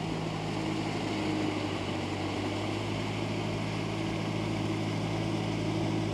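Kubota MU4501 4WD tractor's four-cylinder diesel engine running steadily under load, held at about 2200 rpm, as it drives a rotavator through a flooded paddy field to puddle it.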